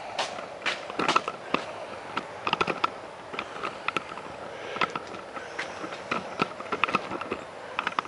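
Irregular clicking and clattering from handling the camera and from footsteps while walking, with some of the clicks ringing faintly like small hard objects knocking together.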